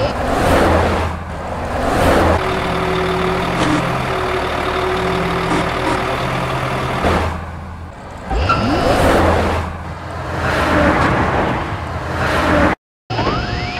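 Truck engine sound effects: an engine revs up with rising pitch and runs, twice over, with bursts of hissing. The sound cuts off sharply for a moment near the end.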